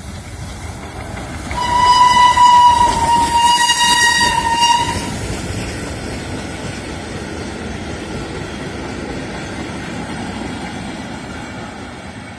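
Steam locomotive 940-041 sounding its steam whistle in one long blast of about three seconds. The train of vintage carriages then rolls past with steady wheel-on-rail noise that fades near the end.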